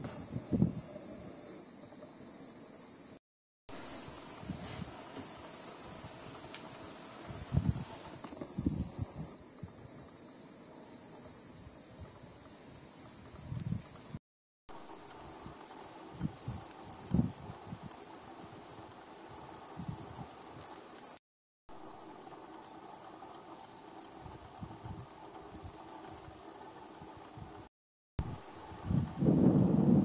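Steady high-pitched chorus of insects buzzing in wetland vegetation, with occasional low rumbles. The sound cuts out briefly four times and is quieter after the third break.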